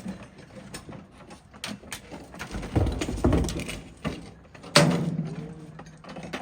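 Scrap metal being handled and loaded: a run of knocks and clatters, a heavier thud about three seconds in, then one loud clang near five seconds that rings on for over a second.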